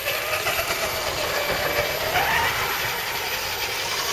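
Scale RC crawler trucks driving across wooden boardwalk planks. Their small electric motors and gears whine, and the pitch wavers and rises about two seconds in as the throttle changes.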